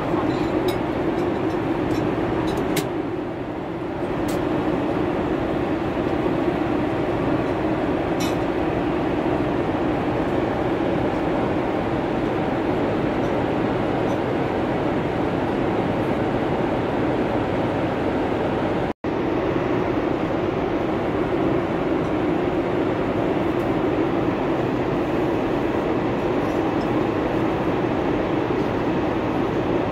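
Steady cabin noise inside a Boeing 747-400 in cruise: a constant rush of airflow and engines with a low hum. A few faint clinks come in the first few seconds, and the sound drops out for an instant a little past halfway.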